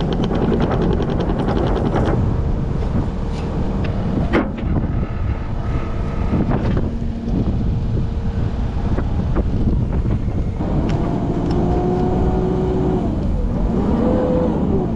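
Skid steer engine running close by, with a rapid rattle at the start and two sharp knocks in the first few seconds. A steady whine rises in for about two seconds after ten seconds in.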